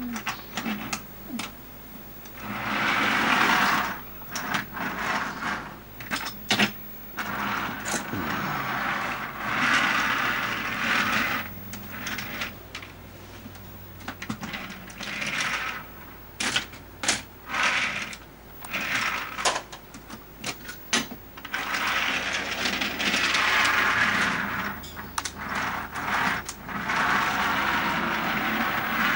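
Toy trains pushed by hand along wooden railway track: bouts of rolling, rattling wheel noise, each a second or three long, with sharp clacks and knocks as cars and pieces hit one another.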